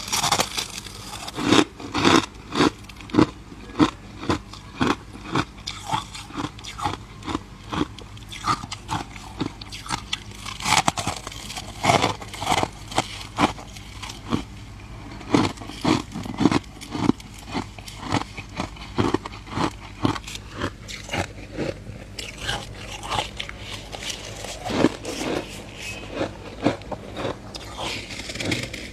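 Close-up biting and chewing of freezer frost: a rapid, steady run of crunches, about two a second, as the powdery ice breaks between the teeth.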